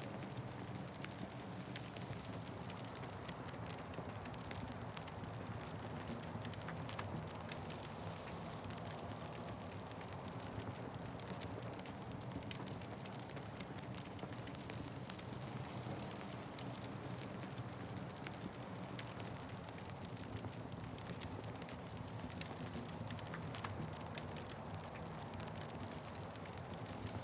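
Wood fire burning, with frequent small crackles and pops scattered over a steady low rush of flame.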